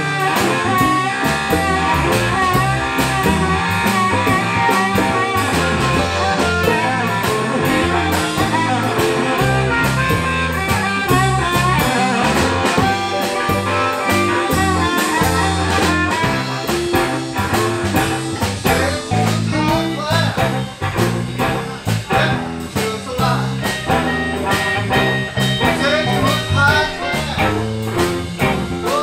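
Live blues band playing a shuffle: electric guitars, bass, drum kit, keyboard and timbales, with a blues harmonica wailing on top.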